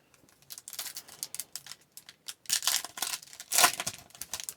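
Trading cards being handled: card stock sliding and flicking against card stock in a series of short, dry scrapes and snaps, loudest about two and a half and three and a half seconds in.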